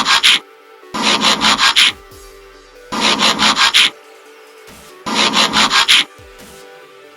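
Intro music or sound-effect loop: noisy bursts of about six quick strokes, each burst lasting about a second and repeating every two seconds, over a faint steady low tone.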